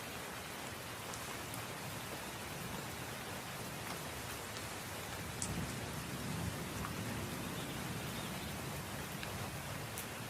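Steady rain falling, a dense even hiss with individual drops ticking sharply now and then. A low rumble swells up about halfway through and carries on under the rain.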